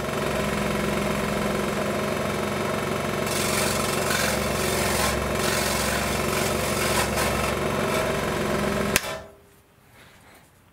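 A 16-inch variable-speed scroll saw running steadily while cutting a wooden wing tip block, its blade reciprocating through the wood. About nine seconds in it stops with a sharp click and the sound dies away quickly.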